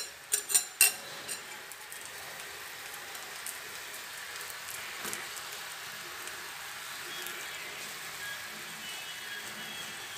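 Jaggery syrup boiling hard in a pan, a steady bubbling sizzle. A few sharp clinks come in the first second or so.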